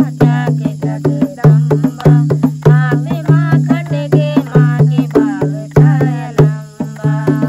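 Two women singing a devotional bhajan together to a hand-played dholak, the barrel drum beating a steady rhythm of about three strokes a second with its deep bass head ringing under the voices.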